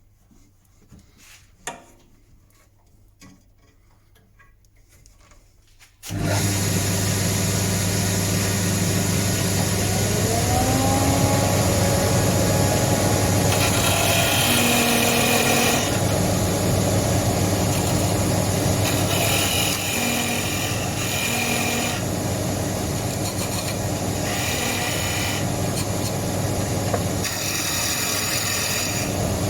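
A few light knocks, then a wood lathe is switched on about six seconds in and runs with a steady motor hum while a turning tool cuts the spinning wooden leg in repeated scraping passes.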